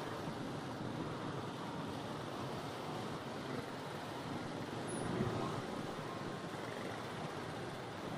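Steady traffic din from a crowd of motorbike and scooter engines idling and creeping forward in a packed jam, swelling slightly about five seconds in.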